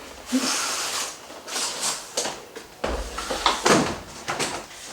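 Cardboard packaging being handled: a sliding scrape of cardboard on cardboard near the start, then a series of short knocks, clicks and rustles as the box is moved about.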